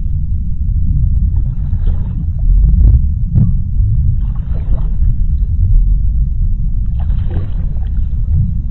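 Underwater sea ambience: a deep, steady rumble with faint low tones sliding up and down, and a soft hiss swelling in and out about every two to three seconds.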